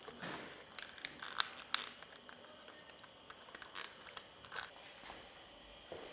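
Sharp clicks and snips of hands and tools working motorcycle wiring into place: four crisp snaps in the first two seconds, then a few fainter clicks about four seconds in.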